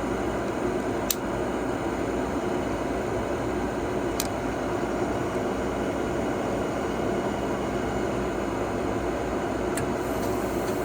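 Gas furnace running during an ignition retry: a steady hum and air rush from its draft inducer fan, with three short sharp clicks, about a second in, around four seconds and near the end.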